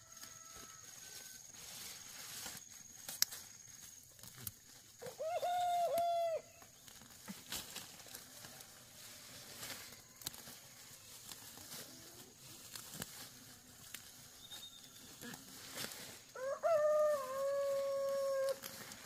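Rooster crowing twice: a shorter crow about five seconds in and a longer, drawn-out crow near the end.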